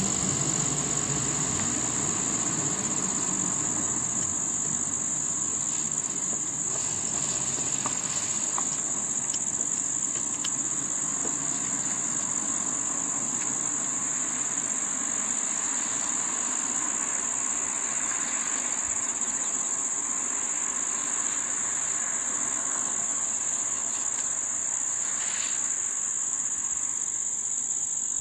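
Continuous high-pitched drone of an insect chorus, unbroken and even. Underneath it, the low hum of a passing car fades out over the first few seconds.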